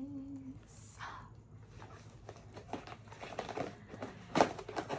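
A printed paperboard product box and its packaging being handled and opened by hand: scattered clicks and crinkling rustles, busier in the second half, with the loudest rustle about four and a half seconds in. A drawn-out vowel from a voice fades out in the first half-second.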